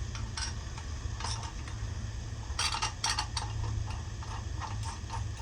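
Irregular metallic clicks and scrapes of small metal parts being handled and fitted, as a DRO scale and its bracket are positioned on a milling machine, with a cluster of them about two and a half to three seconds in. A steady low hum runs underneath.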